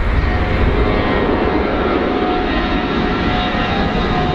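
Four-engine jet airliner climbing out after takeoff: a steady jet engine noise with a faint thin whine running through it.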